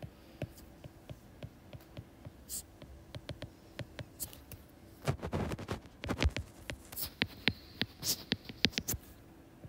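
Stylus writing on a tablet screen: irregular light taps and scratches as letters are drawn. The taps bunch together in quick runs, with a louder low knock or rustle about five seconds in.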